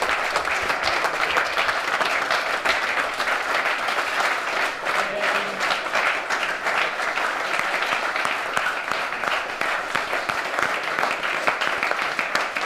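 A small group of people applauding, a steady mass of hand claps.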